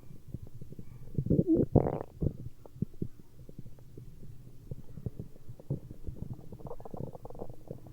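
Stomach growling: a run of irregular gurgles and rumbling pops, with a louder gurgle about one to two seconds in.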